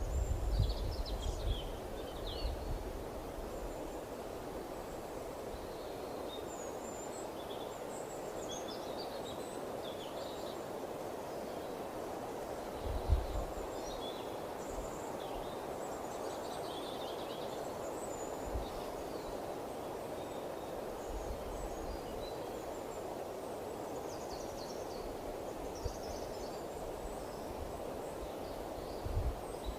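Steady outdoor wind with many small birds chirping, short high calls scattered throughout. Wind buffets the microphone with low thumps near the start, about 13 seconds in, and again near the end.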